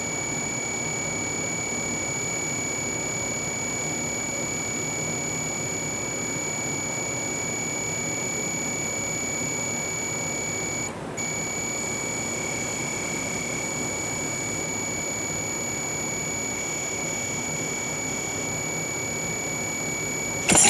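A steady high-pitched electrical whine over a low, even hiss, with a brief dip about halfway through.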